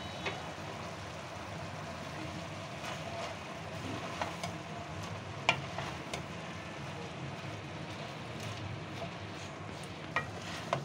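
A wooden spoon stirring chopped spinach in a metal cooking pot over a steady sizzle, with a few sharp knocks of the spoon against the pot, the loudest about five and a half seconds in.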